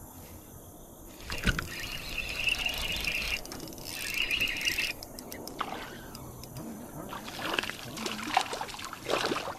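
A spinning reel being cranked as a hooked bass is reeled in, with the fish splashing at the water's surface near the end.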